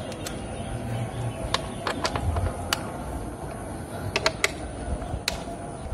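Scattered, irregular sharp clicks and taps of a 10 mm socket driver on the ignition-coil bolts and plastic coil packs of a BMW M52 engine, as the coils are unbolted.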